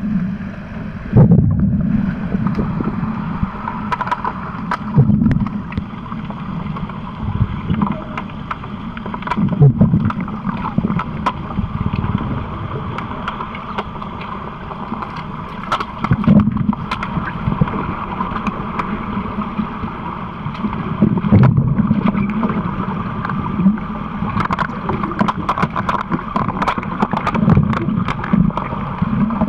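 Underwater hockey play heard underwater: a steady muffled rush of water that swells every few seconds, with many sharp clicks and knocks of sticks and puck on the pool bottom, coming thickest near the end.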